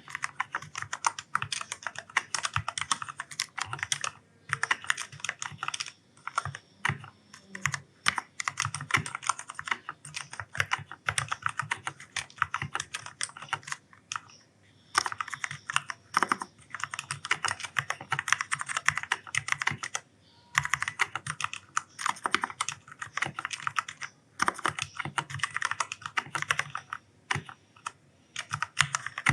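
Fast typing on an Ajazz K610T mechanical keyboard with black (linear) switches: dense runs of clacking keystrokes, broken by short pauses of a second or so.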